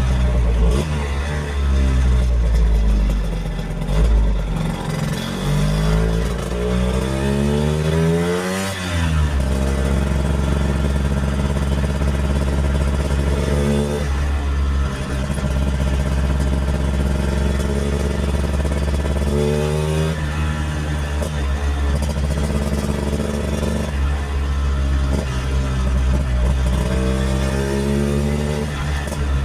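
1964 Lambretta Series 3 scooter's two-stroke single-cylinder engine under way, revving up through the gears. Its pitch climbs steadily for about eight seconds, drops sharply, holds at cruise, then rises again twice later on.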